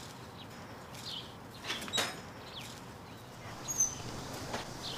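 Quiet outdoor ambience with a few faint, short bird chirps and a couple of light knocks about two seconds in.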